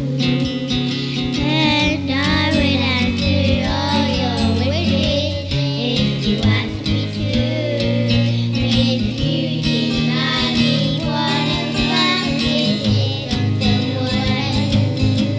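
A song with acoustic guitar accompaniment and a singing voice, sounding like a child singing.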